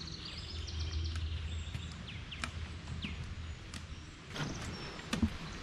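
Footsteps and the tips of forearm crutches tapping along a sandy trail, with birds chirping and a low rumble that fades after about two seconds. A louder knock comes about five seconds in.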